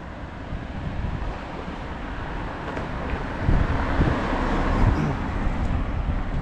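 Wind buffeting the microphone over street traffic, with a vehicle passing that is loudest about four seconds in.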